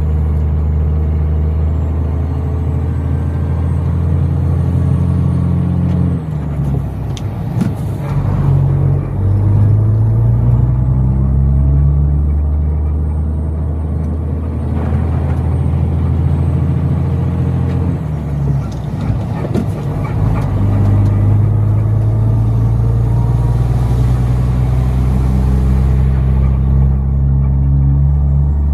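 Truck engine pulling steadily under way, its note slowly climbing. It breaks off twice, about six seconds in and again around eighteen seconds, as it changes gear, then picks up lower and climbs again.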